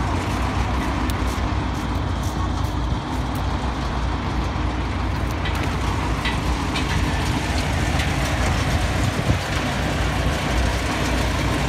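Tractor diesel engines running steadily together with a tractor-driven peanut sieving machine at work, a constant low rumble under a noisy rattle.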